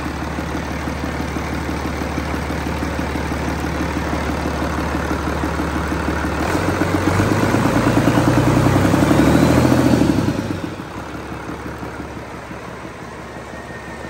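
1994 International DT466 turbocharged six-cylinder diesel with a mechanical fuel pump, running on a test stand. It idles steadily, is revved up about six seconds in, holds the higher speed for a few seconds, then drops back to a lower, quieter run at about ten seconds.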